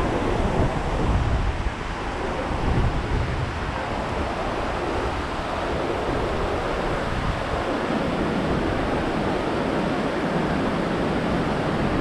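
Lower Yosemite Fall: a steady rush of falling water, with wind gusting on the microphone.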